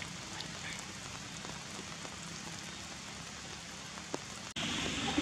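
Steady outdoor hiss with a few faint ticks in it, of the kind rain on a surface makes. About four and a half seconds in it drops out for an instant and comes back louder and brighter.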